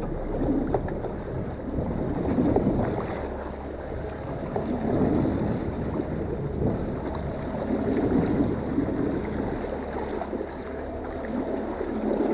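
Boat under way on a rough sea: a steady engine drone under water noise that surges every couple of seconds, with wind buffeting the microphone.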